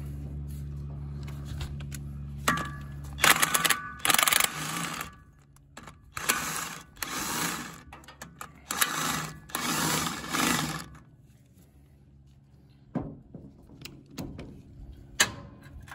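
Cordless DeWalt impact wrench hammering in five bursts, backing out the knife bolts on a Vermeer BC1500 chipper drum. A steady low hum stops about three seconds in, and a few sharp metal clicks come near the end.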